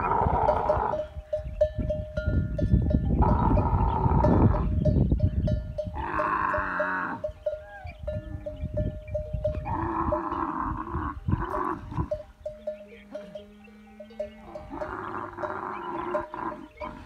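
Dromedary camels mating during the rut, with a camel calling in repeated bursts about every three seconds, each a second or so long.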